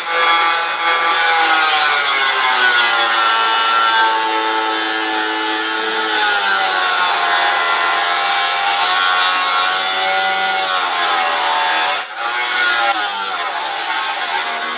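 Power tool cutting metal stock, its motor whine sagging in pitch and recovering as it bears into the cut, with a brief break about twelve seconds in.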